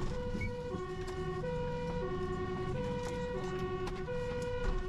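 Fire engine's two-tone siren heard from inside the cab. It switches steadily between a high and a low note, each held for about two-thirds of a second, over the low rumble of the truck's engine.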